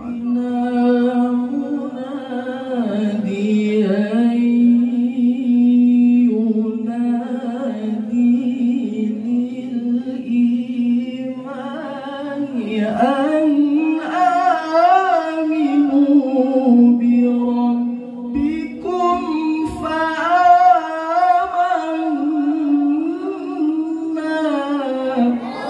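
A man reciting the Qur'an in the melodic tilawah style into a microphone. He holds long notes and winds ornamented, wavering melismas, in long phrases with two short breaks for breath.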